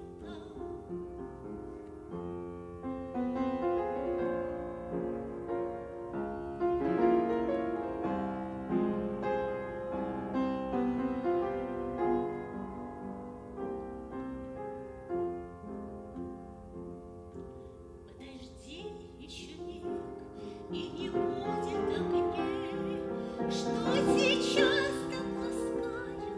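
Music: piano-led classical music, with a female singing voice entering in the latter part.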